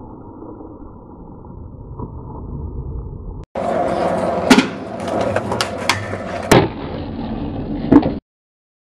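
Skateboard rolling on hard ground with a steady wheel hiss, broken by several sharp wooden clacks of the board popping and landing, the loudest near the end, then cut off abruptly. It is preceded by a few seconds of dull, muffled sound.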